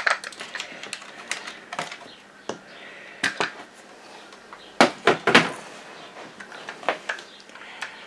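Hard plastic parts of a robot vacuum's suction-fan housing clicking and knocking as they are handled, lifted off the machine and set down on a work mat. The clicks come irregularly, with the loudest cluster about five seconds in.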